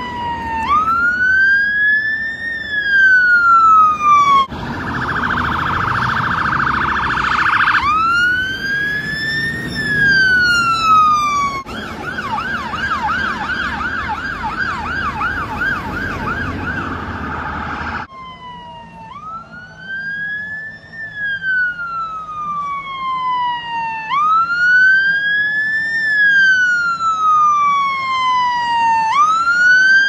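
Irish fire engine sirens in a run of cut-together clips. A wail that rises and then falls slowly, about four seconds a cycle, switches briefly to a fast steady warble. It then changes to a quicker yelp of about three sweeps a second, before the slow wail returns. A low engine and traffic rumble lies under the middle part.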